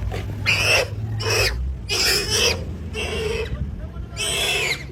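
An animal calling over and over: about five harsh cries of roughly half a second each, with short gaps between them, over a steady low hum.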